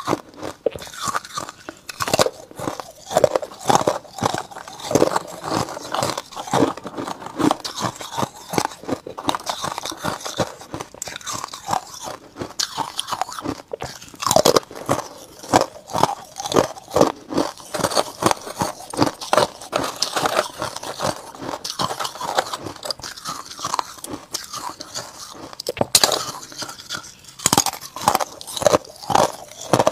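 Frost-coated ice discs being bitten and chewed, crunching in a dense, steady run of sharp cracks.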